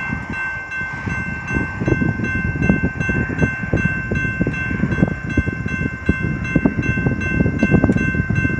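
Railroad crossing warning bell ringing steadily while the gate arms rise, over the low, knocking rumble of a freight train on the double-track line.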